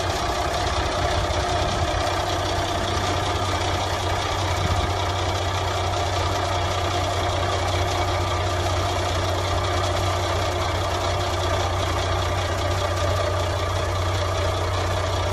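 SAME Drago tractor's air-cooled diesel engine idling steadily.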